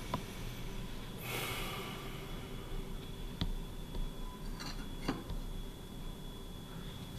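A person's sharp intake of breath about a second in, then a few faint clicks and knocks over a steady low room hum.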